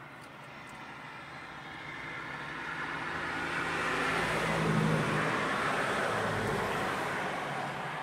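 A road vehicle passing by: its engine and tyre noise swells to a peak about five seconds in, then fades away.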